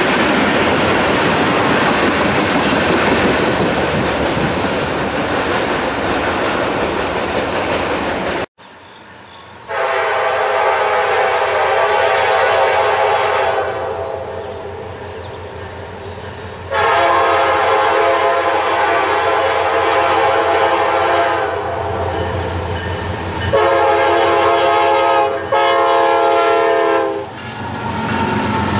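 Freight cars rolling past with a steady rumble and the clickety-clack of wheels over rail joints. After a cut, a Norfolk Southern diesel locomotive sounds its multi-note air horn in four blasts, long, long, short, long: the grade-crossing signal, with the engine's low rumble underneath.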